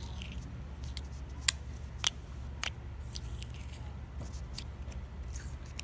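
Thick slime being handled and scooped from its container, giving a run of sharp clicks and pops, the loudest a little past a second and about two seconds in, over a steady low hum.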